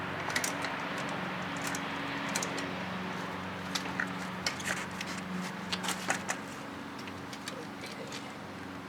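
Scattered light metallic clicks and clinks of tools and bike parts as a bicycle wheel and tire are worked off, over a steady low hum.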